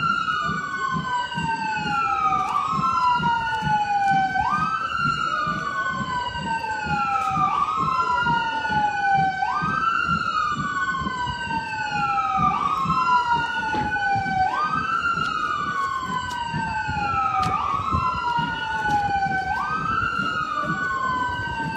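A vehicle siren sounding a repeating wail. Each cycle jumps quickly up in pitch and then slides slowly back down, about every two and a half seconds.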